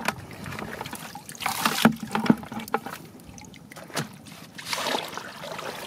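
Shallow muddy water splashing and sloshing in irregular swishes as hands work in it, with a few sharp knocks and clicks.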